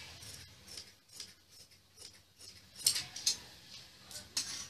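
Steel tailoring scissors snipping through cloth in a run of short cuts, the loudest snips about three seconds in and again near the end.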